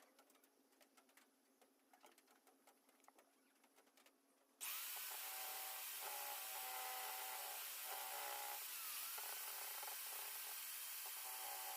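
Light clicks and taps, then about four and a half seconds in an electric drill fitted with a router bit starts suddenly and runs steadily, cutting wood. Its whine dips briefly and recovers about halfway through.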